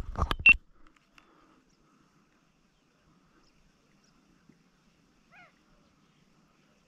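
A brief loud rustling knock in the first half second, then a quiet outdoor background with one short animal call, sliding down in pitch, about five and a half seconds in.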